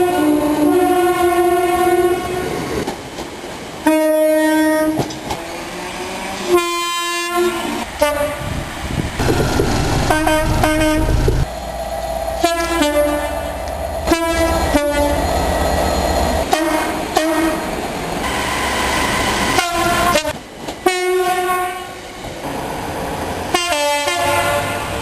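Railway locomotive air horns, several in turn, each sounding two-tone blasts that alternate a low note and a high note, with abrupt cuts between them. Beneath the horns in the middle stretch run a low rumble and the clatter of a train moving on the rails.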